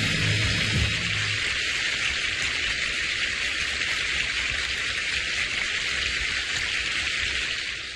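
Audience applauding steadily, with the last low note of the music dying away about a second in. The applause fades out at the very end.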